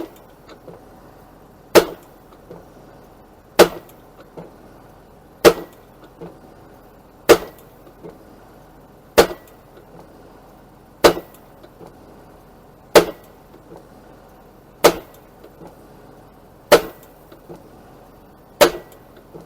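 Bryce Profi post knocker's weight striking the top of a wooden fence post, a sharp knock about every two seconds, eleven blows in all, over a steady tractor engine hum. The post is driving easily into soft ground.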